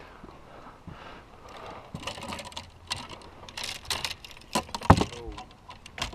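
A bundle of fishing rods and reels clattering and knocking against each other as they are handled, a run of irregular clicks with one sharp knock about five seconds in.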